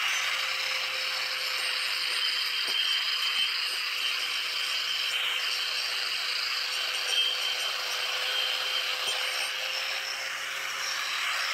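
Angle grinder with a sanding disc grinding a stack of plywood discs, with a steady motor whine under the hiss of abrasive on wood.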